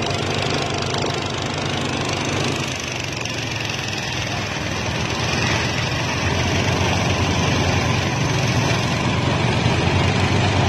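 Small petrol engine driving a rice thresher, running steadily under load as rice stalks are fed into the drum. The sound grows louder about five seconds in.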